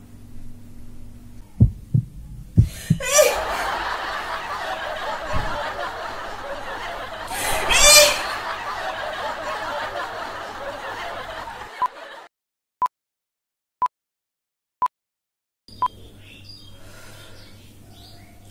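A few sharp thumps, then several seconds of canned audience laughter that swells briefly partway through. It cuts off to silence broken by five short, high beeps about a second apart.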